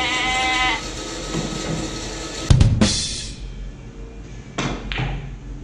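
A held sung note ends about a second in. Then come sharp clacks of pool balls, a cue striking the ball and balls colliding on the table: a loud pair with a low knock past the middle, and a lighter pair near the end.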